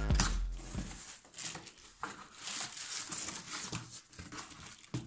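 Cardboard shipping box being slit with a utility knife and pulled open: irregular cardboard scraping and rustling with light clicks, and some crinkling of the plastic bubble wrap inside. A heavier bump of handling noise comes at the very start.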